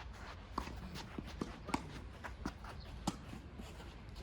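Tennis play on a hard court: a run of short, sharp knocks from racket strikes, ball bounces and players' footsteps, several a second.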